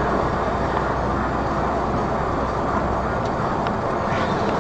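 Steady engine and road noise from a moving vehicle, heard from inside its cab through a dashcam, with a constant low hum.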